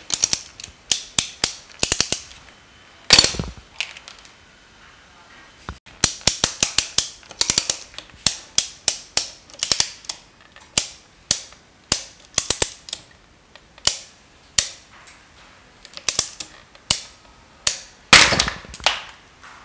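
Ratchet and pawl of a hand-lever rack-and-pinion puller clicking in quick runs as the lever is pumped, slowly loading 3D-printed test rings to the breaking point. A louder crack about 3 s in and another near the end mark samples snapping along their printed layers.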